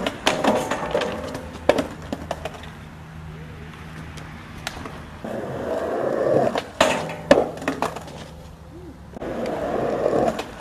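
Skateboard wheels rolling on concrete, building up to a handrail, then the board clacking and slamming down in failed railslide attempts: sharp clatters at the start, a second roll-up ending in a cluster of clacks about seven seconds in, and a third roll starting near the end.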